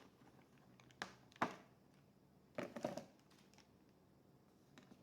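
Hands working on a laptop's internals: short plastic clicks and scraping in two brief clusters, about a second in and again near the middle.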